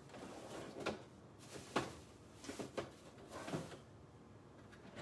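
Someone rummaging through the kitchen looking for something: about five faint, scattered knocks and clunks of doors, drawers and containers being handled.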